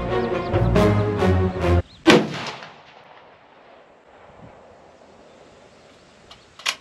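Background music that cuts off, then a single loud rifle shot from a scoped bench rifle about two seconds in, its report echoing and fading over about a second. A shorter, quieter sharp crack follows near the end.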